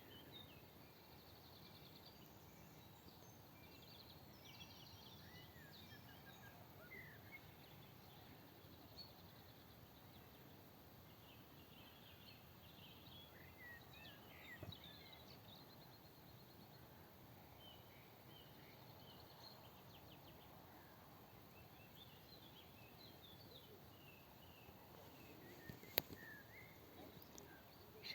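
Faint outdoor ambience with scattered short bird chirps and calls over a quiet hiss, and one sharp click near the end.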